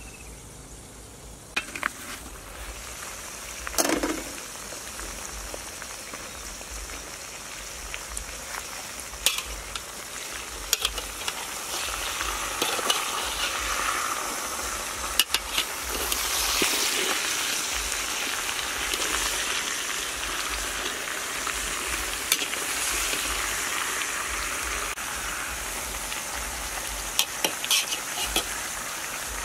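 Chicken and jackfruit pieces sizzling in a stainless steel pot while being stirred. The hiss grows louder about twelve seconds in, with scattered clicks and knocks of the utensil against the pot.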